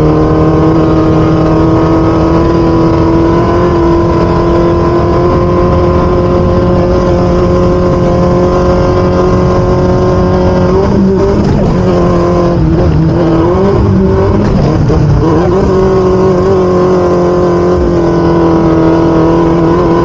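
Off-road race vehicle's engine running hard at high, steady revs. The pitch holds, wavers up and down for a few seconds around the middle as the throttle comes and goes, then steadies again.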